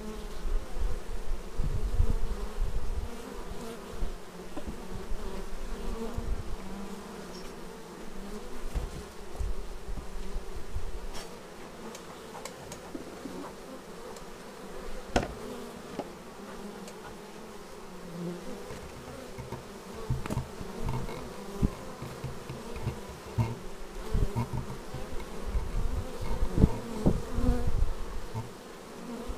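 Honeybees buzzing close to the microphone at a busy hive entrance, the hum swelling and fading as individual bees fly past. Low bumps and rumbles on the microphone come and go, strongest at the start and near the end, with one sharp tick about halfway through.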